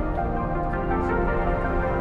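Background music: layered, sustained tones with a steady, calm feel.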